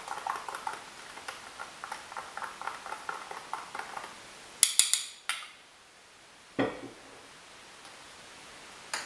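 A spoon stirring a drink in a cup, clinking lightly against the side a few times a second, then tapped sharply on the rim a couple of times. A duller knock follows, and one more sharp clink comes near the end.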